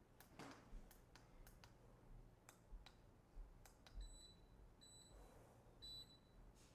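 Faint footsteps on a running walking-pad treadmill: soft low thuds and light clicks at walking pace. In the second half a short high beep repeats about once a second.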